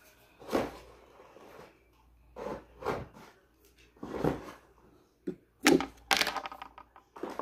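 Handling noises from a hair clipper and its parts being put back into their packaging: scattered light knocks, clicks and rustles, the busiest run about five to six and a half seconds in.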